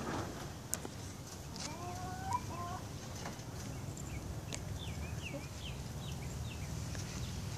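Chickens clucking a few times, then a quick run of about seven short, high, falling chirps, over a steady low background rumble.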